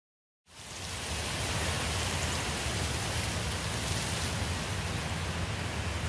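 Steady rushing noise with a low rumble, starting abruptly about half a second in.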